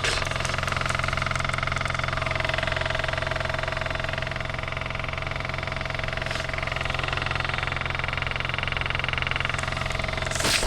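KIA Cee'd engine idling with a rapid rattling chatter from under the driver's-side wheel arch, a noise heard only at idle whose source the owner has not found. A brief loud noise comes near the end.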